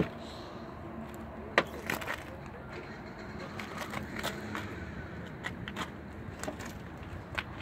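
A car's side door being opened and handled by hand: the door latch clicks open, followed by a few scattered sharp clicks and knocks of the door and its handle over a steady background noise.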